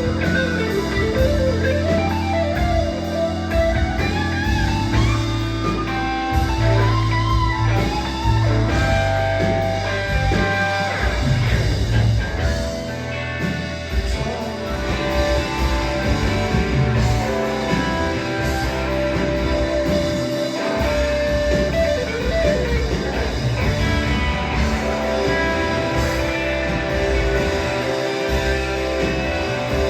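Live rock band playing an instrumental passage: an electric guitar lead line with bent, wavering notes over steady bass notes and drums.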